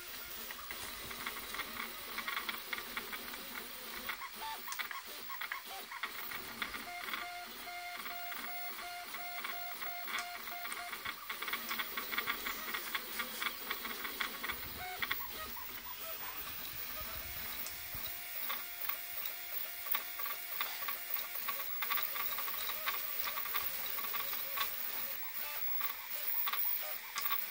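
3D printer printing at about 100 mm/s: its stepper motors whir in quick, ever-changing tones as the print head darts back and forth, over the steady hiss of the cooling fan.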